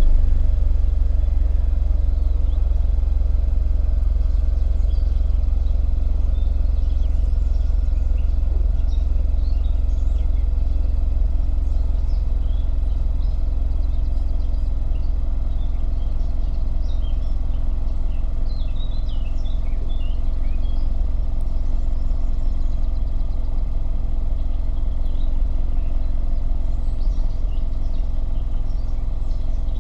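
Volkswagen Golf VI's 1.2 TSI turbocharged four-cylinder petrol engine idling steadily, heard at the exhaust pipe, easing down into its idle in the first second after starting. Birds chirp faintly in the background.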